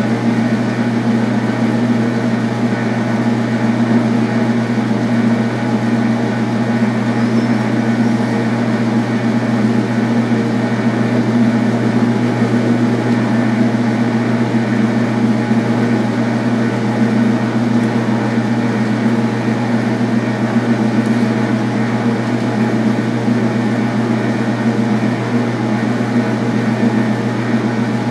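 Metal lathe running steadily with its spindle at a slow 70 RPM, a constant machine hum with a low drone, while a grooving insert slowly parts the turned steel valve off its rod stock at a very fine feed.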